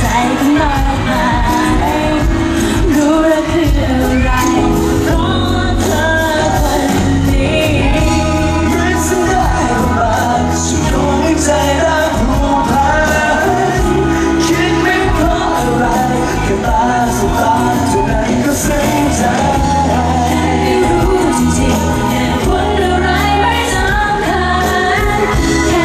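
Live pop band playing with singing: a drum kit keeps a steady beat under bass, guitar and a vocal line, loud and steady throughout.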